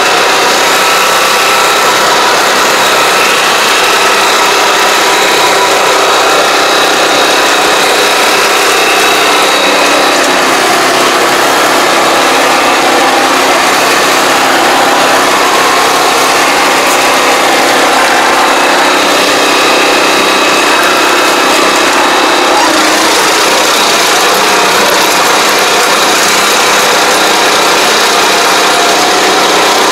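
Engine of a tracked farm vehicle (an AP1 crawler) running steadily at an even speed while it drives.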